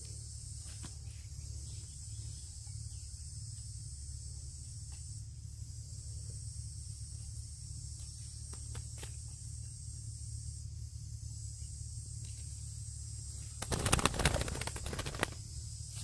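Steady high-pitched insect buzz over a low rumble, with faint handling clicks. Near the end comes a loud flurry of rustling and flapping for about a second and a half, as a captured dove beats its wings in a man's hand.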